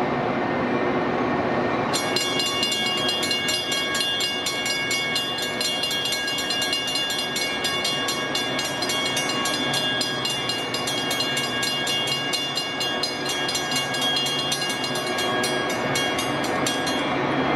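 Level crossing warning bell ringing in rapid, even strokes, starting about two seconds in and stopping near the end, over the steady rumble of an approaching Metra F40PH diesel-electric locomotive hauling bilevel coaches.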